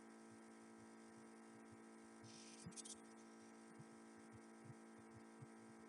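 Near silence: a faint steady electrical hum, with a brief faint hiss about two and a half seconds in.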